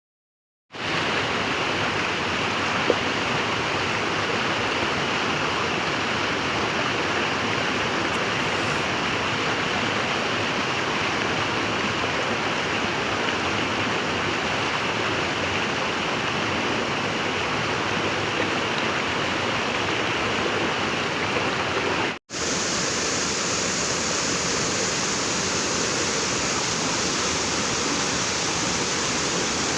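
Steady rushing of a waterfall, starting about a second in. It drops out briefly about three-quarters of the way through, and after that it sounds hissier and brighter.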